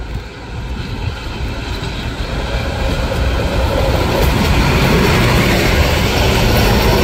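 Vintage ČSD diesel railcar pulling trailer coaches passes close by, its diesel engine running under the rumble of its wheels on the track. It grows steadily louder as it comes alongside.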